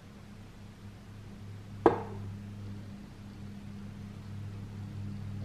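A glass sauce bottle set down on a wooden cutting board: one sharp knock about two seconds in, over a steady low hum.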